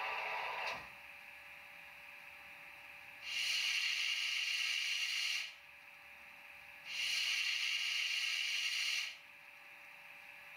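Sound decoder of a Piko H0 model of the DB class 115 electric locomotive, playing through its small speaker. The auxiliary air compressor sound stops with a click about a second in, leaving a steady hum. Then the sanding function gives two hissing bursts of about two seconds each.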